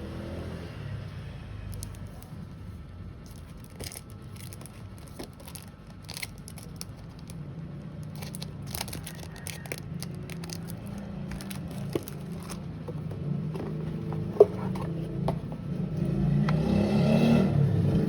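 Crinkling, scraping and small clicks of packaging being handled and opened, with one sharp click past the middle, over a steady low rumble that swells near the end.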